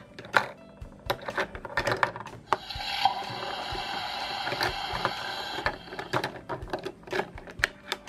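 Plastic toy utensils clicking and knocking against a plastic toy sink, many small sharp taps. Near the middle a steady hiss joins in for about three seconds, then stops.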